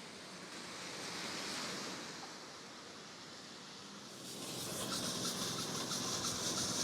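Tyres of passing traffic hissing on a wet, slushy street in a snowstorm, with wind. The hiss swells about four seconds in as a vehicle draws close.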